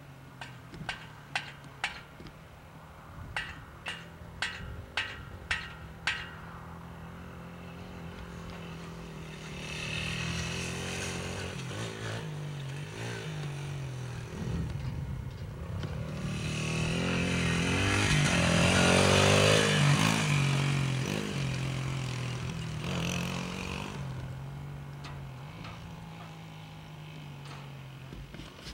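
Dirt bike engine revving up and down as it rides the track, growing louder as it comes closer, loudest about two-thirds of the way through, then fading away. A string of sharp ticks comes in the first few seconds.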